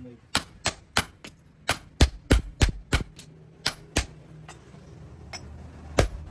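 Blacksmith's hammer striking steel, a quick run of sharp ringing blows about three a second that stops about four seconds in, with one more blow near the end.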